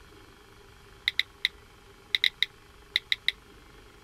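Short, sharp high-pitched squeaks in three quick groups of three, about a second apart.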